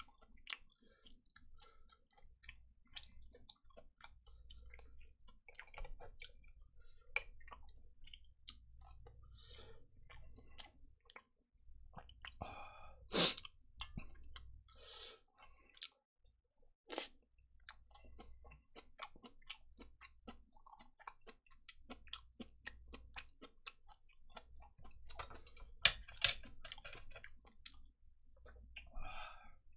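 A person chewing food close to a microphone, with wet mouth clicks and smacking. A few sharper clicks of metal chopsticks against a steel bowl come through, the loudest about 13 seconds in.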